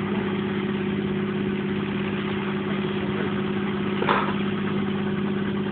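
Small helicopter running on the ground, its engine and rotor giving a steady hum at a constant pitch. A short knock about four seconds in.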